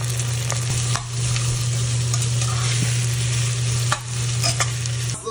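Sliced onions sizzling in hot oil in a stainless steel pressure-cooker pot while a metal spoon stirs them, scraping and clicking against the pot, with a steady low hum underneath. The sound cuts off just before the end.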